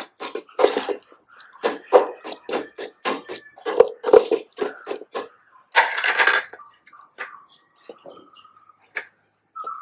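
Metal spoon stirring and mashing egg in a stainless steel dog bowl, clinking against the bowl about three to four times a second; the stirring stops about five seconds in, followed by a brief clatter about six seconds in and then only faint handling sounds.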